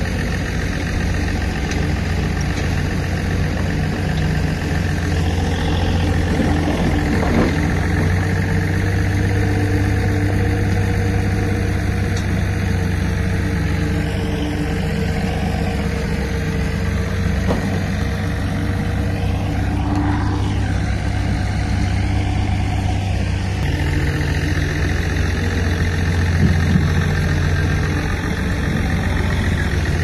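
Bulldozer's diesel engine running steadily, its note changing about three-quarters of the way through.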